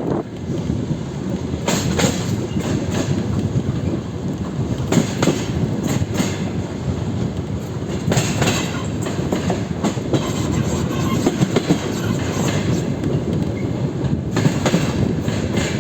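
Wheels of a DR1Am diesel railcar clattering over rail joints at running speed: a steady rumble with clusters of sharp wheel knocks every few seconds.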